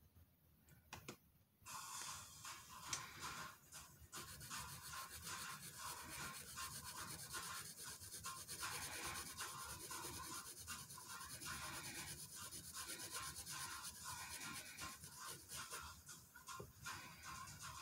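Sharpie fine-point permanent marker scribbling back and forth on paper, filling in a solid black area. The rubbing starts about two seconds in and goes on as a fast run of short strokes.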